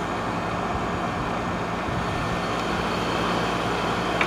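1996 Whirlpool Coolerator 7,000 BTU air conditioner running steadily, its compressor on and fan blowing cold air: an even rush of air over a constant low hum.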